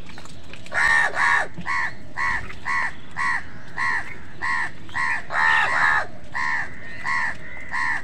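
House crows cawing: a steady series of about fifteen harsh caws, roughly two a second, each rising and falling in pitch, loudest near the start and again around five to six seconds in.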